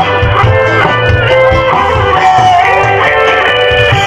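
Loud music played through a large sound-system rig: a melody line over a steadily pulsing bass.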